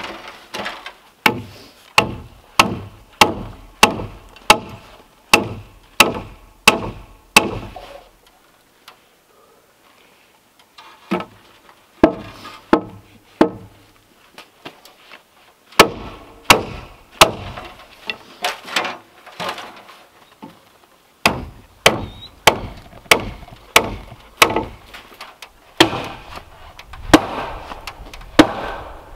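Hammer blows on a cedar wall log, a steady run of sharp strikes about one and a half a second. The strikes pause for a few seconds about a third of the way in, then come again in several further runs.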